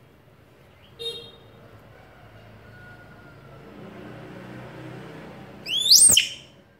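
Baby macaque giving a short, loud, high-pitched squeal that rises and then swoops steeply down, about six seconds in, after a fainter short squeak about a second in.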